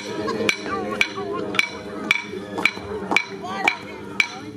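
A steady beat of sharp percussive strikes, about two a second, each with a short ringing tail, under a voice singing or chanting.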